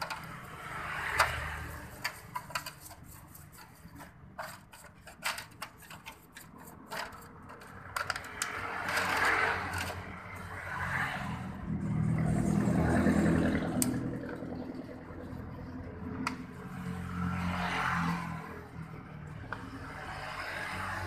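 Stiff brush scrubbing and scraping a Honda Spacy 110cc cylinder head in a metal drip tray, with many sharp clicks and knocks of metal on metal, while cleaning liquid is poured over it. A louder low rumble swells and fades about twelve seconds in.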